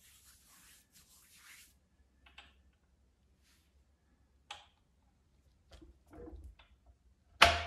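Hands handling an old steel safe: faint rubbing and a few small clicks as the combination dial is worked, then one sharp knock near the end.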